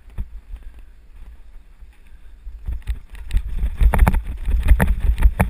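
Mountain bike speeding down a rough dirt trail: wind buffeting the microphone under a low rumble and rattling knocks from the bike jolting over bumps. The jolts grow heavier and denser about three seconds in and ease off just before the end.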